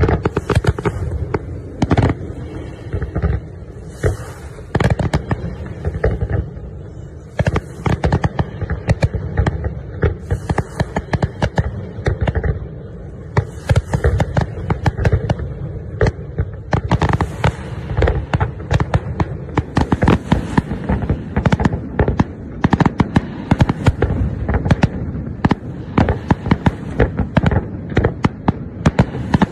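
Fireworks display: aerial shells bursting in rapid, overlapping bangs, several a second, growing denser in the second half.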